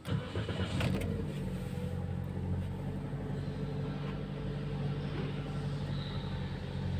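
A 2023 Toyota Yaris engine starting and settling into a steady idle, heard from the driver's seat. The idle is rough with a slight misfire, which the mechanic traces to one faulty fuel injector.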